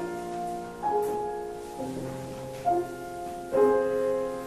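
Piano playing slow classical music, a new note or chord struck about once a second and left to ring.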